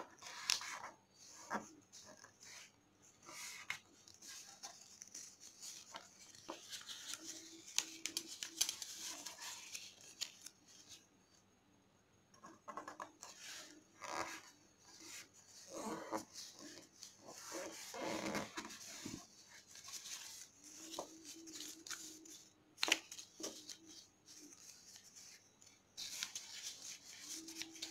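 Glossy origami paper being folded and creased by hand: irregular crinkling and rustling, with sharp crackles as the creases are pressed down.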